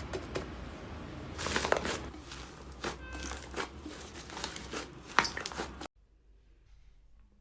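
Slime being squeezed and kneaded by hand, with many crisp crackles, pops and crinkly snaps, which stop abruptly about six seconds in, leaving only faint quiet handling.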